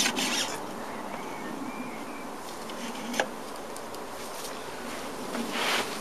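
Greased steel rear axle spindle of a Yamaha TMAX 530 scraping as it is pushed and wiggled through the wheel hub and spacers. Rubbing at the start and again near the end, with one sharp click about three seconds in.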